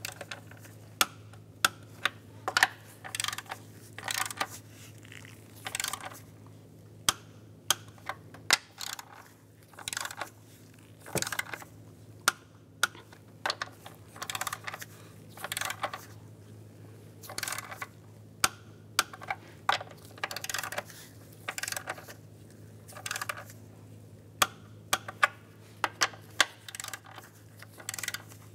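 Torque wrench ratcheting on the intake manifold bolts: short bursts of rapid ratchet clicks every second or so, with sharp single clicks as each bolt is brought to 18 foot-pounds. A steady low hum lies underneath.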